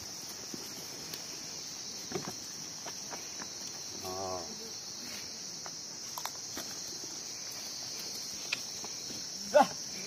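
Steady insect chorus, a high, even hiss, with a few faint clicks and a short warbling call about four seconds in. A short, loud rising-then-falling call near the end.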